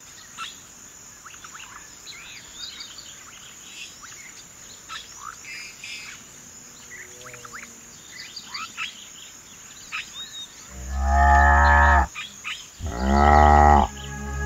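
Birds chirping over a steady insect hiss, then two loud, drawn-out moo calls, each about a second long, about eleven and thirteen seconds in, as the cartoon wildebeest's voice.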